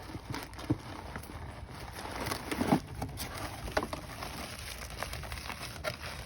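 Packaging and parts being handled and unwrapped: scattered crinkles, taps and light knocks, with a louder knock a little under three seconds in.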